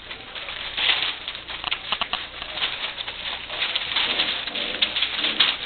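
A litter of English Springer Spaniel puppies eating: a dense, irregular run of smacking and lapping clicks, with a few low vocal sounds from the puppies near the end.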